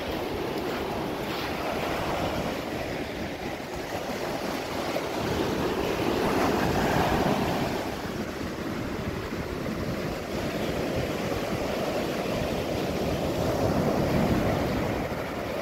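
Surf washing up a sand beach, a steady rush that swells about halfway through and again near the end as waves come in, with wind buffeting the microphone.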